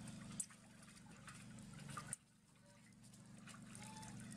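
Water splashing and dripping as a wet baby monkey is washed by hand over a basin, with two sharp clicks about a second and a half apart and a faint short squeak near the end.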